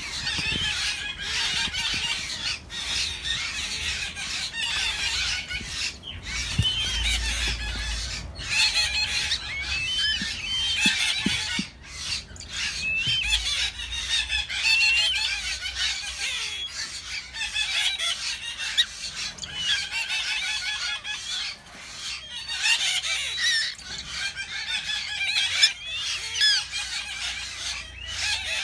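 Downy eagle chicks calling without pause: a steady stream of short, high, wavering peeps and chirps.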